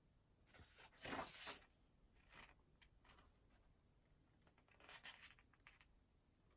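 Faint desk sounds of studying: a pen scratching and paper rustling. The loudest rustle comes about a second in, with softer scratches and light ticks around two, three and five seconds in.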